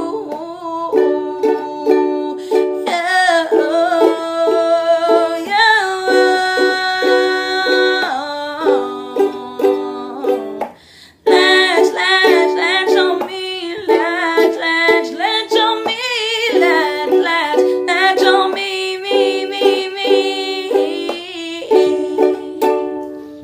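Ukulele strummed in chords under a held, wavering sung vocal line, with a short break about eleven seconds in before the playing and singing resume.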